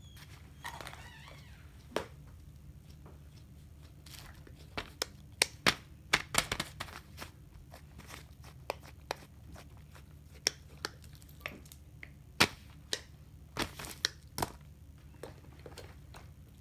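Fidget toys being handled and put down on a paper sheet: paper crinkling with scattered sharp clicks and taps, a quick cluster of them about a third of the way in and more later on.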